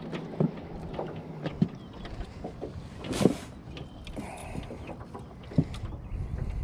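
Four sharp knocks spread over several seconds, with a brief rattling hiss on the loudest one about three seconds in, as a hooked largemouth bass is swung over the side into a jon boat and handled.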